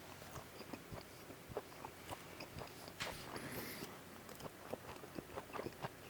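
Faint, close-up chewing of a bacon cheddar hot dog: soft, irregular wet mouth clicks and smacks, with a short, louder noise about three seconds in.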